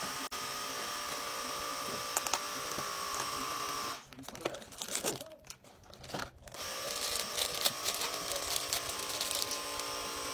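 A red plastic wrapper from a mini figure crinkling as it is handled, over a steady background hum. The hum drops out for about two seconds in the middle, and the crinkling comes mostly in the second half.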